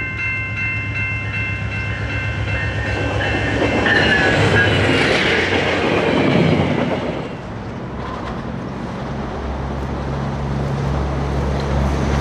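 VIA Rail P42DC passenger locomotive sounding a multi-note horn chord as it approaches. The chord drops in pitch as the locomotive passes about four seconds in. The passenger cars then rush past with wheel clatter, and a low steady drone follows in the last few seconds.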